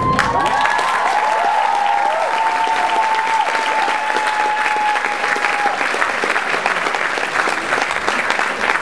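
Theatre audience applauding as the music stops, with high-pitched cheers rising over the clapping for the first five or six seconds before the clapping carries on alone.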